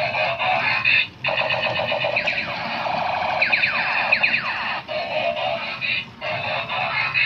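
Tinny electronic music and sound effects from the small speakers of battery-powered toy trains, with a run of falling whistle-like sweeps a couple of seconds in and a few brief breaks.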